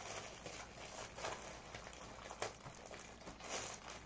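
Thin plastic carrier bag rustling and crinkling as it is handled and a drink cup is pulled out of it, with a sharper crackle about two and a half seconds in.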